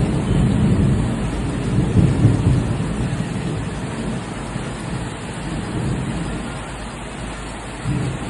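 Steady rain falling, with a heavy low rumble underneath that is strongest in the first couple of seconds and then slowly dies down.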